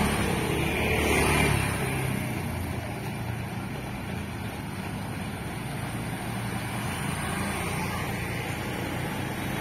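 Motor scooter passing close by, its engine loudest about a second in and then fading, leaving a lower, steady engine hum from other scooters.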